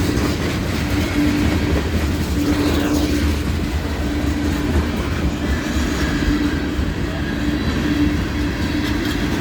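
Train rolling slowly past a level crossing: a steady rumble of rail cars going by, with a low hum that keeps breaking off and returning.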